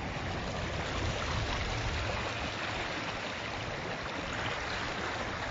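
Floodwater rushing along a flooded street, a steady, even rush of flowing water.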